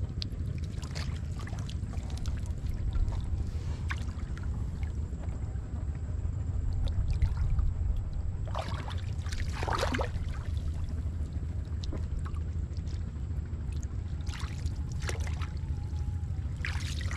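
Hands sloshing and splashing in shallow muddy water, loudest around nine to ten seconds in and again near the end, over a steady low rumble.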